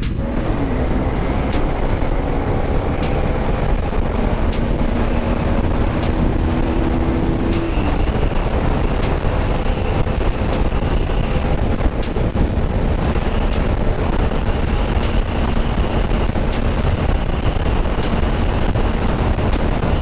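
Bajaj Rouser 200NS single-cylinder engine pulling at high speed on a flat-out top-speed run. Its pitch climbs steadily, drops at an upshift about eight seconds in, then holds steady. Heavy wind rush on the helmet microphone runs underneath.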